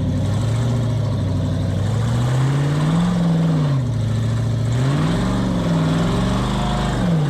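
Engine of a rock-crawling 4x4 revving up and down as it climbs over rocks, its pitch rising and falling in about three slow surges.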